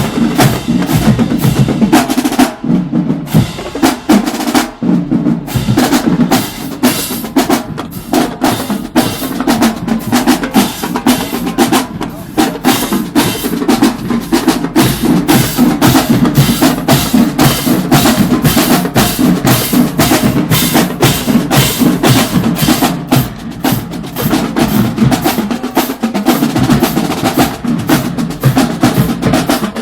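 Marching band drumline playing a cadence: fast, steady snare drum strokes and rolls over bass drum hits.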